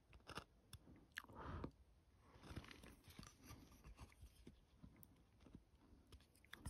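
Chip-carving knife cutting into a wooden coaster: a series of quiet short cuts and small clicks, the loudest a longer cut about a second and a half in.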